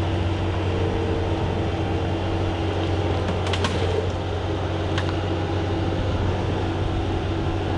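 Skid steer engine running steadily under the operator's control, a low drone with a faint steady whine above it. A couple of light clicks or knocks come in the middle.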